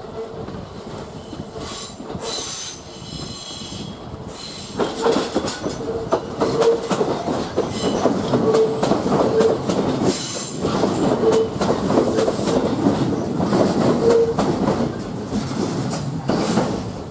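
A JR East E353-series limited express electric train passes directly below, its wheels clattering over the switch points and rail joints. The rumble grows much louder about five seconds in as the cars run underneath, with rapid clicks throughout.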